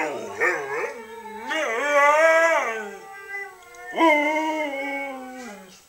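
Siberian husky howling and 'talking': a few short wavering yowls, then two long howls, the second jumping up sharply and sliding slowly down in pitch.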